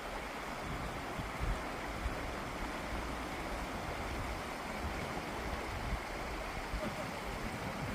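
Steady rushing noise outdoors, with irregular low rumbles of wind buffeting the microphone.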